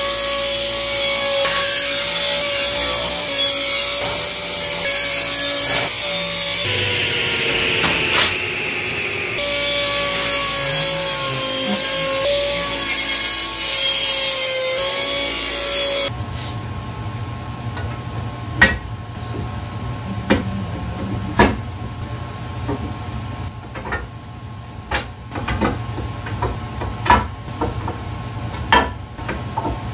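Table saw running and ripping hardwood boards lengthwise into strips, a steady blade whine over the hiss of the cut. About halfway through the saw sound stops abruptly and gives way to a low hum with a string of sharp knocks and clicks as wooden strips and bar clamps are handled.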